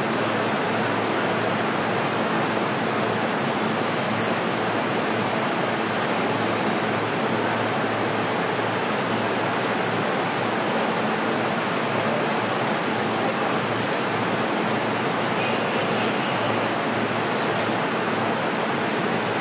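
Steady interior noise inside a JR East E233-series electric car: an even rushing hiss with a faint constant low hum, with no motor whine rising or falling and no rail-joint clicks.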